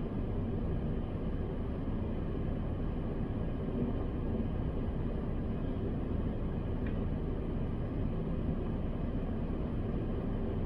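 Steady low rumble inside a parked car's cabin, as of the car's engine idling.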